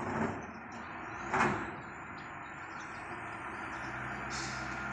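Heavy diesel machinery running at a distance: a steady low engine drone that grows a little stronger near the end, with two short hissing bursts about a second apart near the start.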